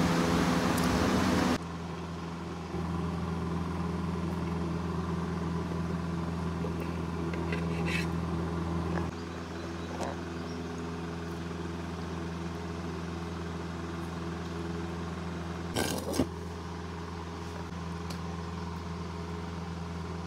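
A steady low mechanical hum, like a motor running, that shifts in level a few times. A louder hiss fills the first second and a half, and a few brief clicks and knocks come around the middle and near the end.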